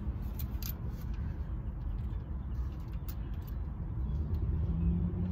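A big diesel truck driving by: a steady low engine rumble that swells and grows louder near the end. A few faint light clicks sound over it.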